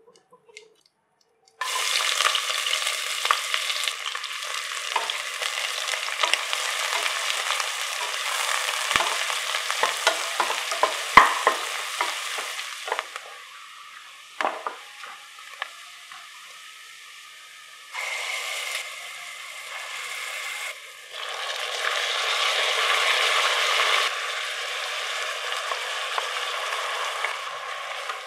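Sliced onions frying in hot oil in a pressure cooker, a steady sizzle with the scrape and knock of a wooden spatula stirring them. The sizzle starts suddenly about two seconds in. It dies down for a few seconds in the middle, then swells again in stretches.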